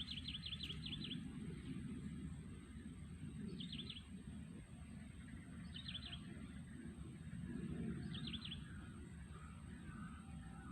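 A small bird calling: a quick run of about eight high chirps at the start, then three shorter runs of three or four chirps every couple of seconds, over a steady low outdoor rumble.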